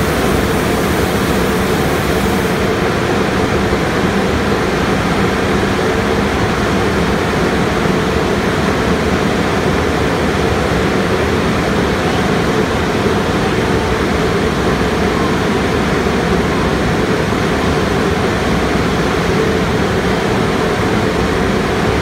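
Premier car wash dryer blowers and tunnel equipment running steadily and loudly, an even fan noise with a low hum. A high hiss of water spray is mixed in at first and cuts off about three seconds in.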